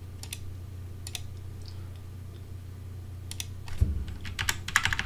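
Typing on a computer keyboard: a few scattered key presses, then a quick run of keystrokes in the last second and a half, over a low steady hum.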